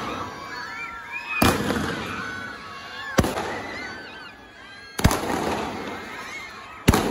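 Firecrackers going off: four loud bangs about two seconds apart, each trailing off in a crackling tail.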